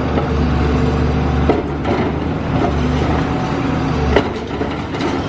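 Diesel engine of a Cat high-reach demolition excavator running steadily under load, with sharp cracks and knocks of concrete breaking about a second and a half in, at two seconds and just after four seconds. The engine's deep hum drops off with the last crack.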